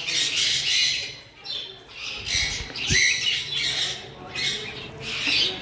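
A flock of cockatiels in an aviary giving repeated harsh squawks, several birds overlapping in bursts about every second.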